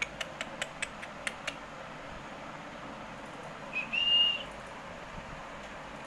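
Indian ringneck parrot giving a short high whistle about four seconds in: a brief note, then a held one of about half a second. Before it, near the start, a quick run of about seven sharp clicks, all over a steady background hiss.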